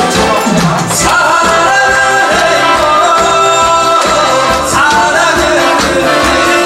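Trot song: a voice singing long held notes over a backing track with a steady beat.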